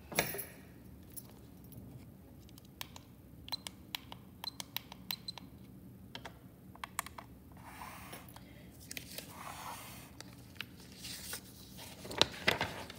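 Light handling noise: scattered small clicks and taps, then soft scraping and rustling, with paper being handled near the end.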